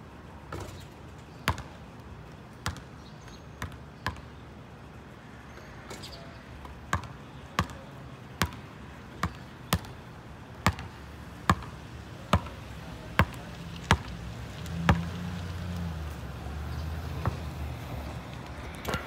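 A basketball bouncing on an asphalt court: a few bounces coming closer together as the ball settles after a shot, then steady dribbling at a little over one bounce a second. A low rumble comes in near the end.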